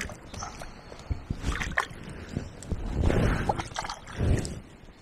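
River water sloshing and splashing around a wading angler's legs as he shifts position in the shallows, with a swell of it about three seconds in and a short low slosh just after. A few sharp clicks of fishing tackle being handled come in between.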